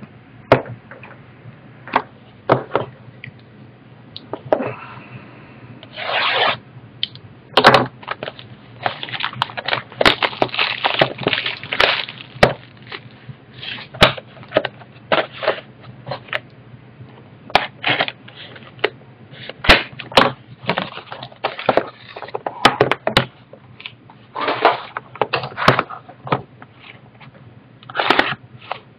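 A trading card box being opened and its contents handled by hand: irregular rubbing, scraping and crackling of cardboard and packaging, with many sharp clicks and taps.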